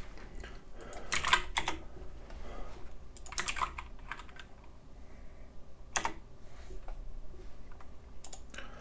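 Computer keyboard keys clicking in about four short bursts, with quiet gaps between.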